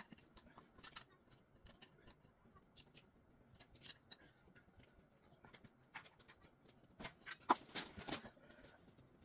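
Faint scattered clicks and light knocks of wooden chair-frame parts and hardware being handled during assembly, with a louder cluster of knocks about seven and a half seconds in.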